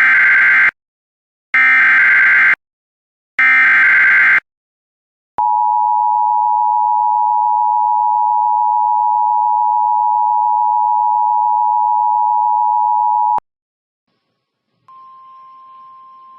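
Emergency Alert System broadcast tones: three one-second bursts of SAME header data, a harsh digital warble, then the two-tone EAS attention signal held steady for about eight seconds before cutting off sharply. They mark the start of a relayed alert. After a short gap, a much fainter single steady tone begins near the end.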